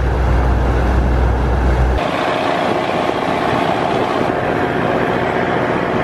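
A river boat's engine running steadily under way, over a constant rush of noise. The sound changes abruptly about two seconds in, the low hum giving way to a brighter, more even drone.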